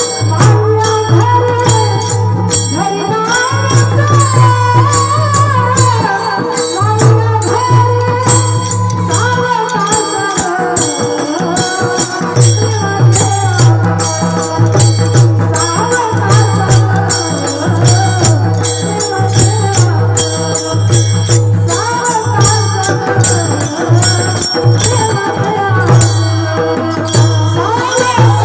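Mridang (pakhawaj) drum played in a fast, dense rhythm, its deep strokes pulsing under quick sharp beats, with a gliding melody line and bright ringing clinks over it in devotional folk music.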